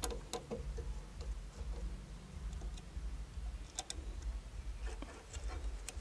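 A few faint, scattered clicks and taps of a screwdriver and fingers working on a plastic float switch housing, over a low rumble.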